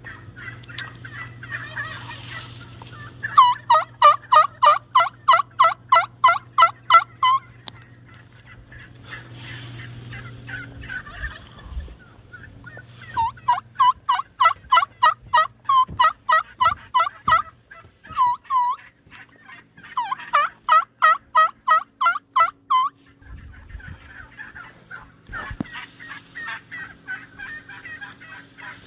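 Merriam's wild turkey yelping in long runs of evenly spaced notes, about three a second, three main runs with short breaks between. Softer turkey chatter comes before and after, with a few dull thumps.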